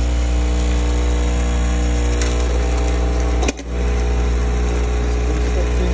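Sachet-counting machine's rotary bowl feeder and drive motor running with a steady low hum and a whine of several steady tones above it. There is a light click about two seconds in, and a sharp click about three and a half seconds in, where the sound briefly dips.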